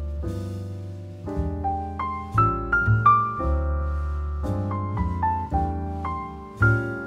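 Piano music: a melody of struck notes over low, held bass notes.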